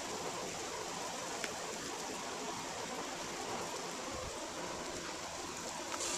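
Steady hiss of rain falling during a thunderstorm, with one faint tick about a second and a half in.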